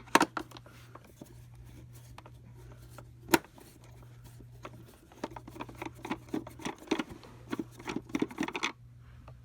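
Screws being backed out of an Oreck upright vacuum's plastic housing with a screwdriver: scattered small clicks and rattles, one sharp click about three seconds in, and a quick run of clicks in the second half. The bit is not magnetized, so the loosened screws stay down in their holes.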